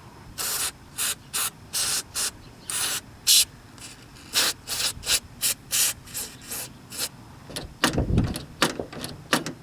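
Aerosol can of white lithium spray grease hissing in many short bursts as the door latch and handle mechanism is lubricated for metal-to-metal contact. A low thump comes about eight seconds in.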